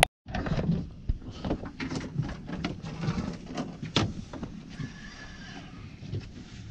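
Irregular clicks and knocks over a low rumble: handling noise of gear on a small fishing boat. The sound drops out for a moment at the very start.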